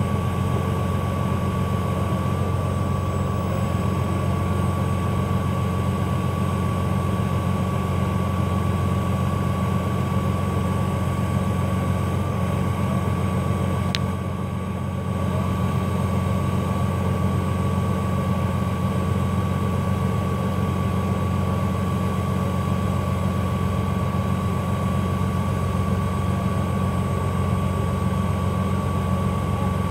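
A large diesel engine runs steadily, a loud low drone with a faint steady high whine over it. The level stays even, with one click and a brief dip about halfway through.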